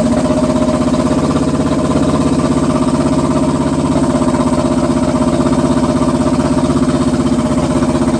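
Honda CB250 motorcycle engine idling steadily at an even, unchanging speed.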